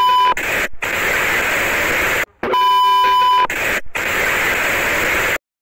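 TV-static glitch sound effect: a steady electronic beep that stops just after the start, then loud static hiss. A second beep of about a second comes in about two and a half seconds in, followed by more hiss, and the sound cuts off abruptly near the end.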